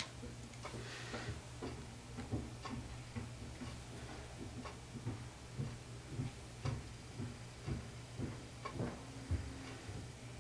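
A run of faint ticking clicks, spaced fairly evenly at about two a second, over a low steady hum.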